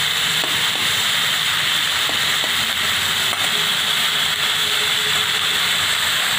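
Sliced onions sizzling steadily in hot mustard oil in a kadai on a high flame, with a few light scrapes of a metal spatula stirring them.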